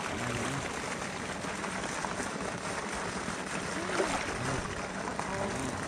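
Pool water sloshing and lapping around people and an elephant wading in it, a steady rushing wash.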